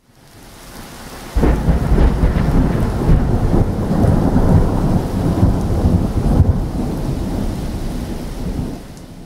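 Thunder-like sound effect for an animated title intro: a sudden low boom about a second and a half in, then a rumble that slowly fades out.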